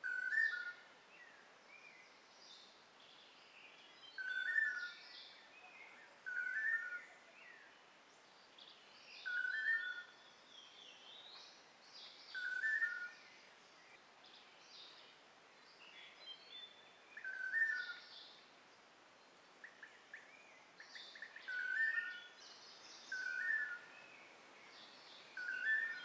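Long-tailed manakins calling: a short, low, repeated call about nine times, every two to five seconds, which fits the males' paired "to-lee-do" call given at their display perch. Fainter, higher chirps from other forest birds sound between the calls.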